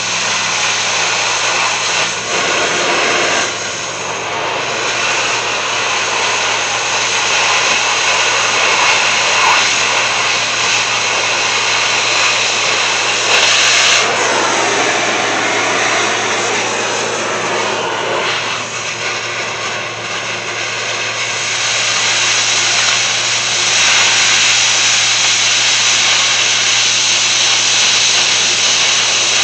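Gas cutting torch hissing steadily as it cuts through a rusty steel truck frame rail, with a steady low hum underneath.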